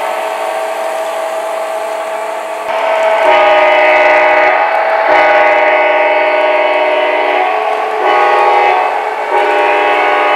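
Diesel locomotive horn blowing the grade-crossing pattern: two long blasts, a short one and a long one, over a steady tone that starts before the first blast.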